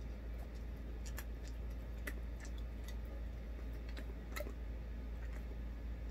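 Faint, scattered ticks and clicks, about seven in six seconds at uneven intervals, over a steady low hum.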